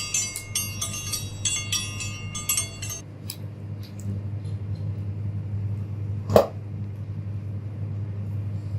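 Metal hand tools clinking and rattling for about three seconds while a stripped Ethernet cable is worked. Then a steady low hum with a few light ticks, and a single sharp click past the halfway point as the cable's inner part is cut away.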